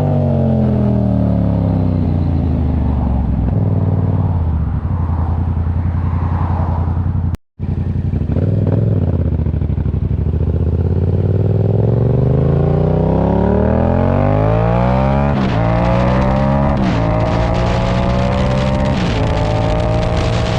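A motor vehicle engine slowing, then accelerating hard through the gears. Its pitch climbs and drops sharply at each of about three shifts in the second half. The sound cuts out briefly about seven seconds in.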